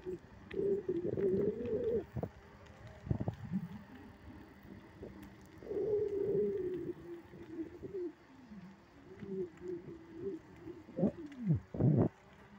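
A pigeon cooing in long, wavering coos, about three drawn-out phrases. A few short knocks and clicks from the bicycle ride come in between, most of them near the end.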